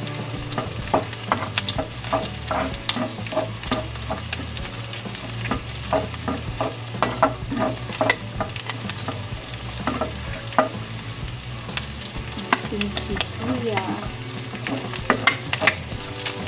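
Minced garlic and pork belly sizzling in rendered pork fat in a stainless steel pan, stirred with a spatula that scrapes and clicks irregularly against the pan.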